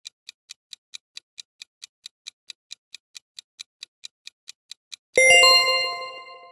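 Countdown-timer clock ticking, about four ticks a second, then about five seconds in a ringing chime with several steady tones sounds and fades, marking time up as the answer is revealed.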